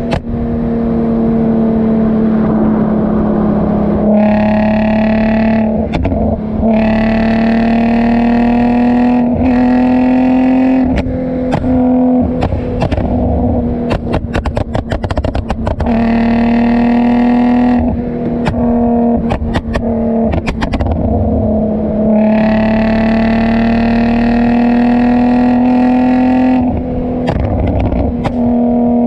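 Exhaust of an Infiniti G35's 3.5-litre V6 through a Motordyne Shockwave exhaust with test pipes, running at fairly steady revs with a slow rise in pitch. Several times the throttle is lifted and the note drops away into rapid crackles and pops: overrun pops deliberately tuned in with Uprev's ARC feature.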